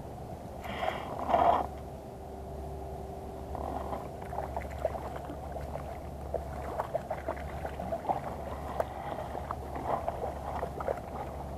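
Water splashing close to a float tube as a hooked fish thrashes at the surface beside it, with many short splashes through the second half. There is a louder burst of noise about a second and a half in.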